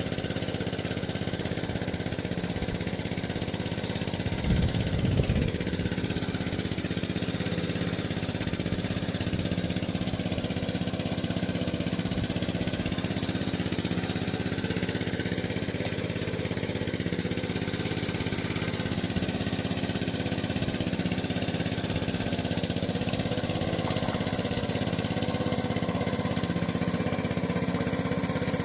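A small engine running steadily at an even speed, with a brief louder low rumble about four seconds in.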